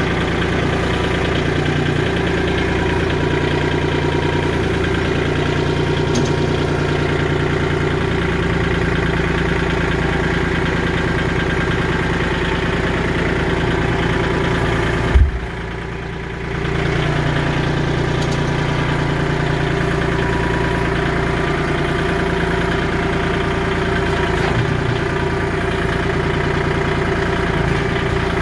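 Kubota L2501 compact tractor's three-cylinder diesel engine running steadily. About halfway through there is a single sharp knock, and the sound drops away for a second or so before the engine hum returns.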